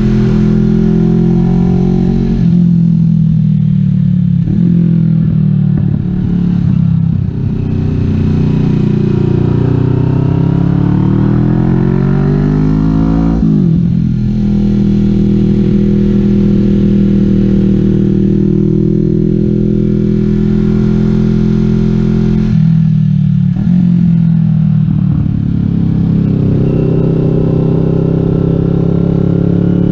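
Kawasaki Vulcan S 650 parallel-twin engine running through a Delkevic 550mm slash full exhaust while the bike is ridden. The pitch falls off the throttle a couple of seconds in, climbs steadily under acceleration, drops sharply about halfway, holds steady, falls again after about twenty seconds, then climbs near the end.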